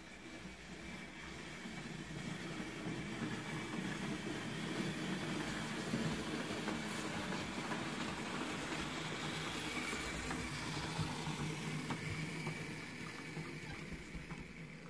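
Fleischmann H0 model steam tank locomotive running along the track with a train of goods wagons. The rumble of its electric motor and wheels on the rails grows louder as it approaches and fades near the end.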